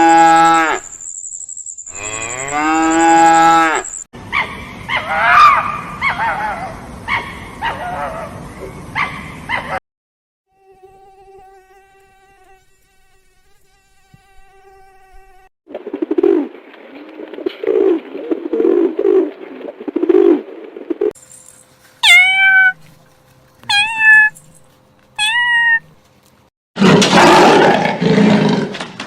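A run of different animal calls cut one after another. It opens with a cow mooing twice, then moves through several other animals' calls, including three short falling calls, and ends in a loud, rough roar.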